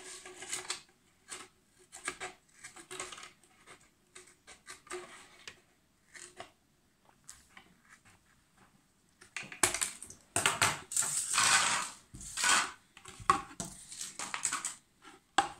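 Scissors cutting through the thin plastic of a fabric-softener bottle: a run of short crisp snips. Then a louder stretch of plastic crackling and rustling as the cut-away part is pulled free and the bottle is handled, and a sharp knock near the end.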